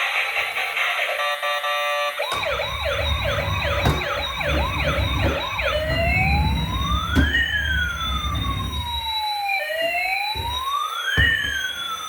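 Music for about the first two seconds, then a siren: a fast yelping warble with a low rumble under it, switching at about the halfway mark to a slow rising and falling wail.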